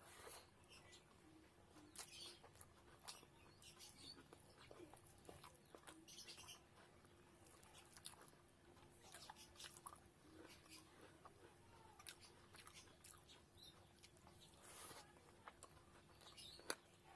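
Quiet close-up eating sounds: a person chewing, with irregular soft mouth clicks and smacks, over a faint steady hum.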